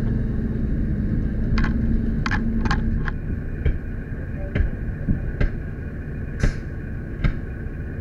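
Fire engine's diesel engine running steadily, a low rumble with a hum that falls away about three seconds in. About nine sharp clicks and knocks come over it at uneven intervals.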